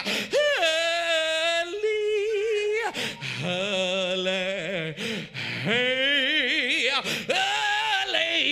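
A man's voice through a microphone, singing drawn-out, wavering notes in about five long held phrases rather than speaking, in the chanted, tuneful style that closes a Black Baptist sermon.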